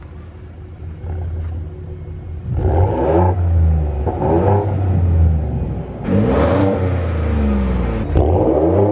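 A 2022 Ford F-150's 3.5 EcoBoost twin-turbo V6, breathing through a Corsa cat-back exhaust, idles for a couple of seconds and is then revved four times in short blips, the third the longest. It has a deep note without drone.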